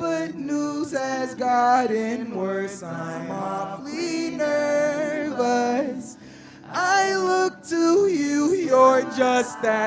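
Wordless melodic singing: held vocal notes that bend and glide from one pitch to the next, with a brief drop in level about six seconds in.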